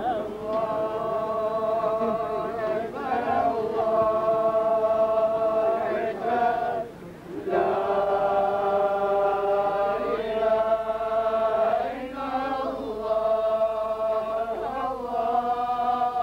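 A group of men's voices chanting together in unison, a Muslim religious chant sung in long held, drawn-out phrases with short breaks between them.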